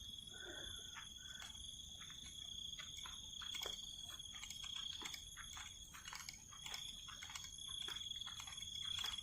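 Night insects, crickets, trilling steadily at one high pitch, with many scattered sharp clicks and crackles that grow thicker after the first couple of seconds.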